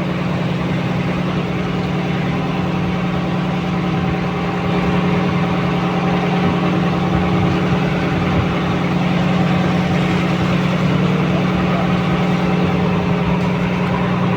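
Small fishing boat's engine running steadily, getting slightly louder about four and a half seconds in.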